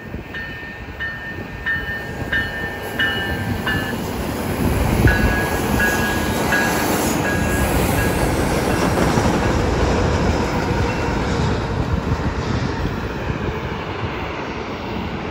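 Passenger train with a diesel locomotive passing close by on the tracks, its rumble and wheel clatter building to a loud steady run about four seconds in. A bell rings in short repeated strokes over the first few seconds, and again briefly as the train comes level.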